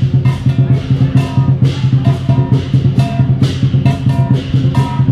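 Chinese dragon-dance percussion music: a drum beating with cymbal clashes about three times a second, over a steady low drone and short ringing pitched notes.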